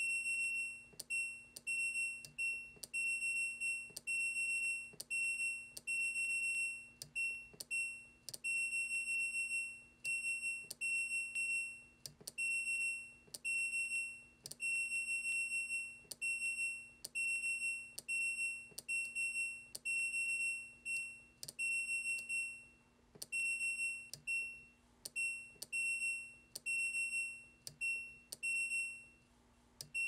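Washing machine's electronic beeper giving dozens of short, high, single-pitch beeps in an irregular rhythm, about one or two a second, over a faint steady hum.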